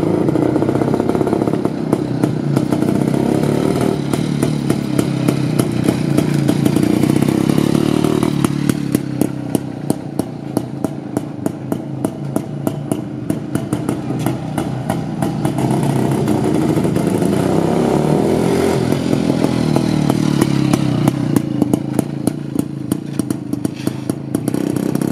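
IZh-49's single-cylinder two-stroke engine, fitted with a VAPE electronic ignition, running as the motorcycle is ridden about, revs rising and falling. At lower revs there are spells of evenly spaced exhaust pops.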